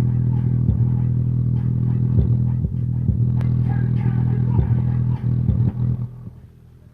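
Subwoofer playing loud, deep bass: a steady low hum with short thumps through it. It drops away about six seconds in.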